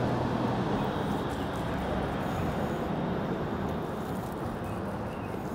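Chef's knife slicing through a rotisserie chicken's crisp roasted skin and meat on a wooden cutting board, over a steady low background rumble.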